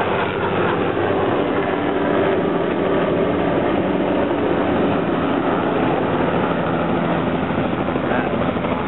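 Hughes/MD 500 light helicopter's turbine and rotor running at climb power as it departs and flies off, a loud steady whirr over a low hum.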